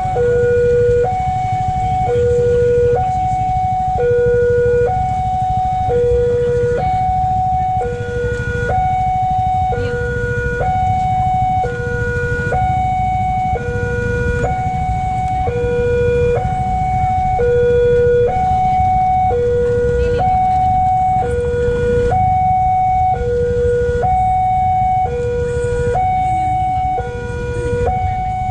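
Railway level-crossing warning alarm sounding: an electronic two-tone signal alternating between a high and a low note, each held about a second, repeating steadily. It is the warning that a train is approaching.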